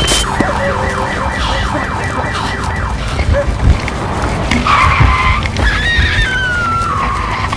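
Film sound mix: a car alarm whooping rapidly, about five rising sweeps a second, for the first three seconds, then a long falling wail, over heavy low thuds.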